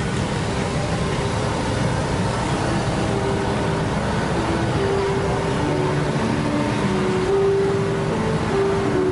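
Steady rumble of motorcycle and car engines crawling along with a street procession. From about three seconds in, a faint melody of held notes that change pitch rises above it.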